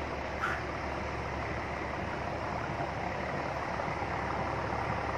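Steady, distant rumble of an approaching train, slowly growing louder, with a brief high chirp about half a second in.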